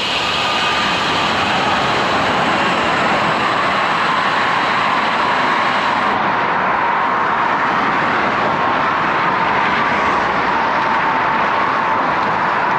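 Steady rush of wind and tyre noise on a camera mounted on a road bicycle riding along, with a faint hum that slowly drops in pitch.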